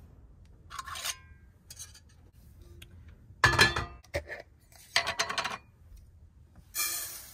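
Small glass jars being handled: several separate clinks of glass on glass and on a wooden counter, and a screw-top lid grating as it is twisted open, the loudest clink about halfway through.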